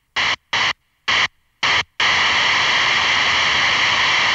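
Static noise sound effect: four short bursts of hiss switched on and off about twice a second, then a steady, loud hiss of static from about halfway through.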